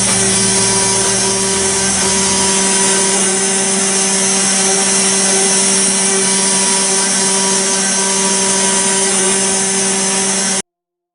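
CNC router spindle running steadily with a constant whine as its cutter mills a relief into a brass plate, with a rough cutting hiss over the tone. It stops abruptly about ten and a half seconds in.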